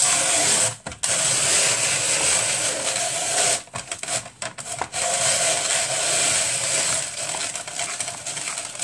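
Electric kitchen machine's motor running with a steady whir. It cuts out briefly about a second in and again for over a second midway, then runs on.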